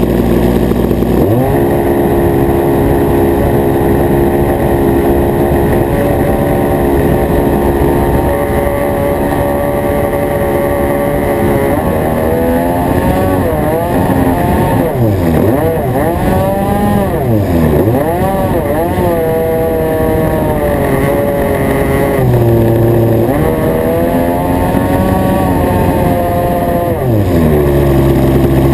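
Nitro glow engine of an RC plane, heard close up from a camera mounted on the plane, running continuously. Its pitch holds steady for the first stretch, then swings up and down again and again in the middle, and drops lower near the end.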